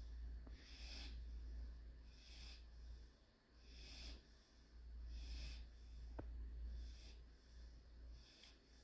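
German Shorthaired Pointer puppy breathing softly in its sleep, a quiet airy breath about every second and a half. A faint click about six seconds in, over a low steady hum.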